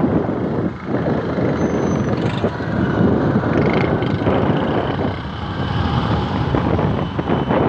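Traffic noise heard while riding along a road: engines of passing motorcycles and rickshaws under a steady rush of wind buffeting the microphone.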